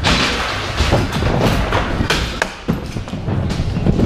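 Scooter wheels rolling over skatepark ramps with a steady rumble, broken by several sharp thumps and clacks of scooters landing or hitting the ramps.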